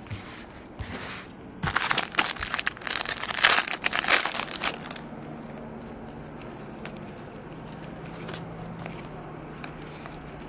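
Trading-card pack wrapper crinkling and being torn open, a dense crackling rustle for about three seconds beginning a little under two seconds in.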